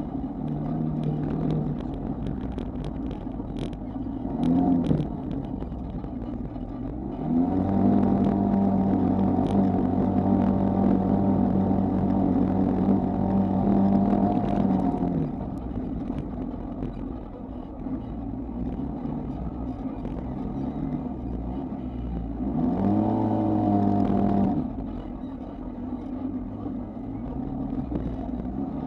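Off-road vehicle's engine running through sand: it revs up about a quarter of the way in and holds a steady high pitch for several seconds before easing off, then revs up briefly again later before dropping back to a lower rumble.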